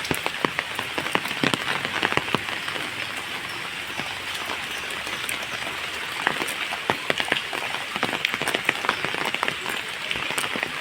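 Steady rain falling, with many close raindrops striking a surface as sharp, irregular ticks over an even hiss.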